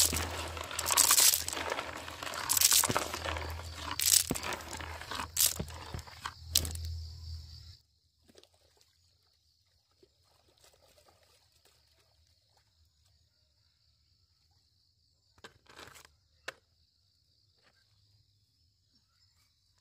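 Crinkling and crunching handling noise for about eight seconds, which stops abruptly. After that it is near silent, with a faint steady high hiss and a few brief knocks around sixteen seconds in.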